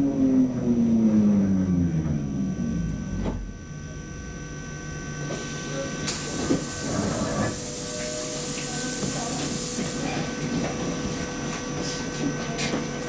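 Lidingöbanan A30B tram's electric traction motors whining down in pitch as it brakes to a stop, ending about three seconds in with a short clunk. A few seconds later a loud hiss of compressed air sounds while the tram stands at the platform.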